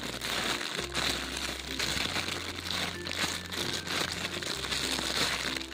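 Close crinkling and rustling handling noise as a squishy toy is handled and squeezed, over quiet background music with held low bass notes.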